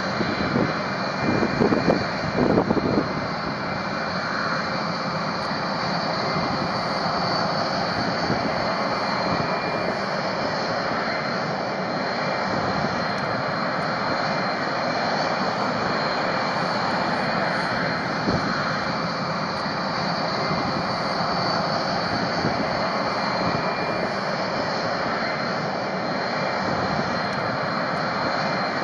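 B-1B Lancer bombers' four General Electric F101 afterburning turbofans running steadily at taxi power, a broad jet rumble with a high turbine whine on top. A few louder irregular bumps come in the first three seconds.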